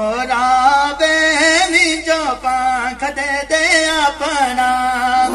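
A man singing a Himachali devotional folk song (jagrata bhajan) into a microphone, one amplified voice holding long notes and sliding between them in ornamented turns.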